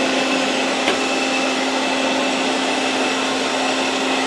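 Zaco V5x robot vacuum cleaner running on a tiled floor: a steady motor-and-suction noise with a held low hum, and a single click about a second in.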